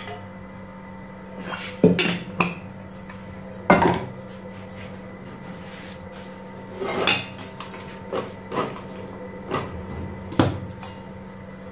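Kitchen clatter: metal utensils and dishes knocked and set down in a handful of separate clinks, the loudest about four seconds in, over a steady low hum.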